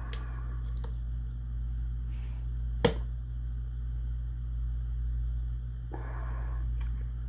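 Small clicks and scraping handling noises from parts and tools being worked on a side-by-side shotgun during reassembly, with one sharp metallic click about three seconds in, over a steady low hum.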